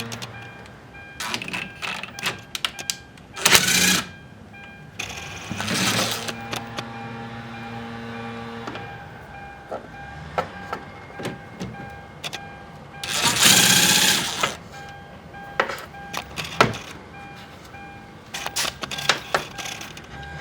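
Ratchet wrench with a 10 mm socket working a screw loose: scattered metal clicks and knocks, with three rasping ratchet runs about a second long, the longest about two-thirds of the way in.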